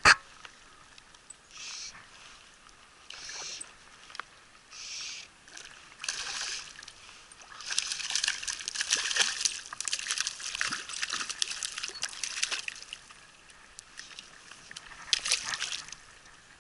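Water splashing and sloshing in uneven bursts: a few short splashes, then a longer stretch of busier splashing in the middle and one more burst near the end.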